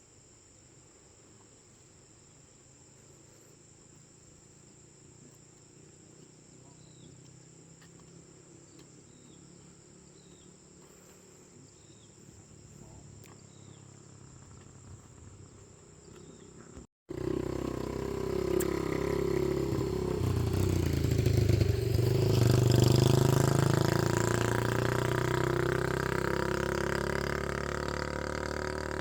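Faint outdoor background with a few short high chirps. Then, after a sudden cut, a motorbike engine runs, growing louder to a peak a few seconds later and then easing off.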